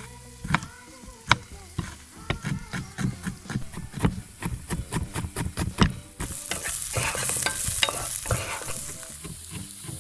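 Knife chopping gherkins on a cutting board: a run of sharp taps that quickens, then about six seconds in the sound gives way to onions sizzling in a frying pan.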